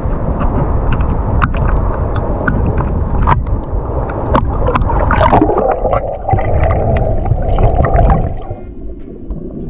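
Wind buffeting the microphone and rough water sloshing and gurgling around the camera, with scattered sharp knocks and splashes. About eight seconds in the rumbling drops off and the sound turns muffled.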